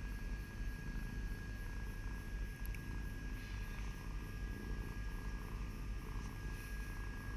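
Domestic cat purring steadily, a low rapid rumble from a relaxed cat being petted.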